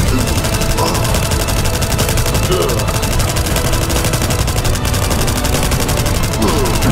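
Rapid automatic rifle fire: a steady, unbroken stream of shots that does not let up.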